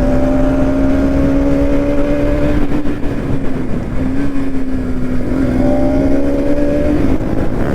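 Bajaj Pulsar NS200 single-cylinder engine, on its stock exhaust, running at nearly steady revs while riding, with wind rumble on the microphone. The engine note holds level, eases off briefly around the middle, then steadies again.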